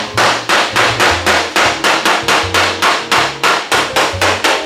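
Body hammer tapping steadily on the steel body panel of a Chevelle, about four firm little taps a second, knocking down a high spot that welding raised along the seam.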